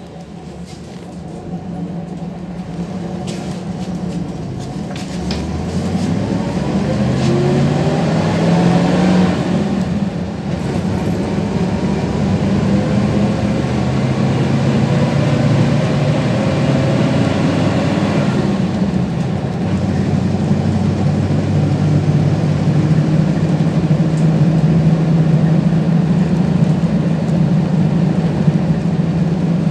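PAZ-32054 bus engine heard from inside the cabin as the bus pulls away: the engine note rises for several seconds, drops at a gear change about ten seconds in, then runs at a steady, louder drone with road noise.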